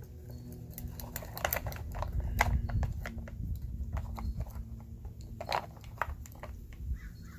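Irregular plastic clicks and knocks as the side cover of an Oregon CS1500 electric chainsaw is unscrewed and taken off.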